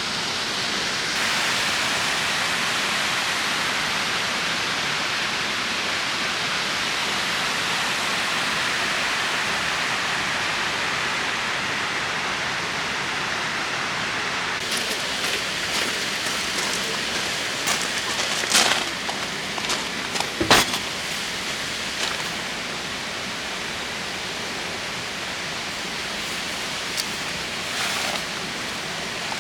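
Steady rain falling, an even hiss throughout, with scattered sharp taps from about halfway through, two louder ones in quick succession.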